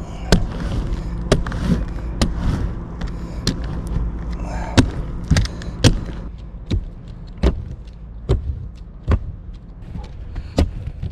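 Pole-mounted hand roller pushed back and forth over new rubber RV roof membrane to press it into the adhesive, with irregular sharp clicks and knocks about every half second to a second from the roller and its handle. A steady low hum runs underneath.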